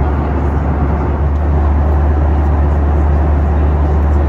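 Steady, loud low drone of a Boeing 737 cabin in cruise flight: engine and airflow noise heard from inside the cabin, with a deep hum underneath.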